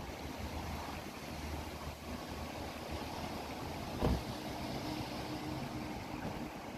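Storm water gurgling and welling up around a cast-iron manhole cover that the overloaded drain below has pushed up out of its frame, with a steady low rumble under it. A single thump about four seconds in.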